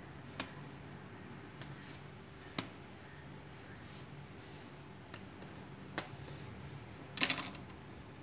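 A few light knocks on the countertop as dough is cut into portions and set down, with a short scratchy rattle near the end. A faint low hum runs underneath.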